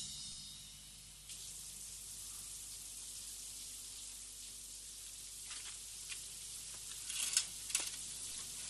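Steady hiss of a shower running, coming on suddenly about a second in, with a few faint clicks and taps over the last few seconds.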